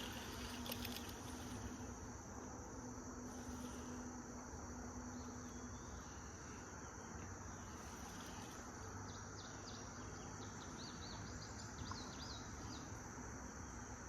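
Insects droning in a steady high-pitched chorus, with a run of faint quick chirps about two-thirds of the way in.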